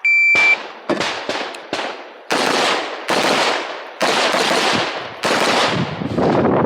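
A shot timer gives a short electronic start beep, then a semi-automatic competition rifle with a muzzle brake fires a rapid string of shots. The shots come at uneven gaps, some in quick pairs, and each one echoes.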